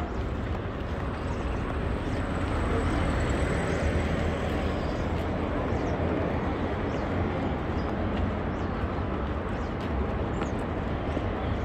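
City street ambience: a steady, continuous rumble of road traffic.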